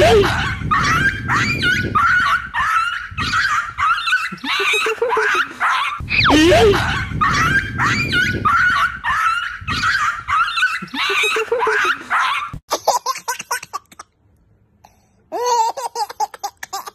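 An edited comedy soundtrack: a loud laughing clip that plays twice, each pass opening with a quick rising whistle. After a short break near the end, a baby laughs.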